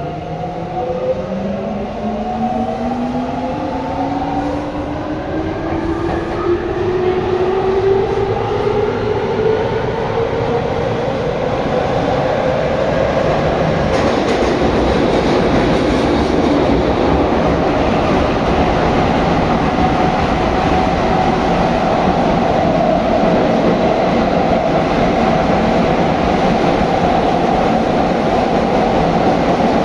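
Tobu 9050 series train accelerating away from a station: the traction motor and inverter whine rises in pitch in several tones over the first ten seconds or so, then gives way to a loud, steady running noise of the train at speed in a subway tunnel.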